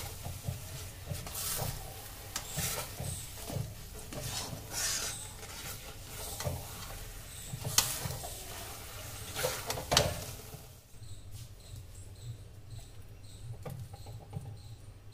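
A flat steel spatula stirring and scraping thick ragi flour halwa against the side of a steel kadai: irregular scrapes and metal knocks, the two sharpest about two-thirds of the way through. The stirring then gets quieter.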